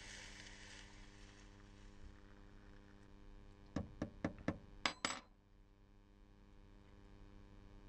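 Hot water poured from a pot into a mug, a soft hiss during the first second or two; then a teaspoon clinks sharply against the mug about six times in quick succession around four to five seconds in, as the drink is stirred.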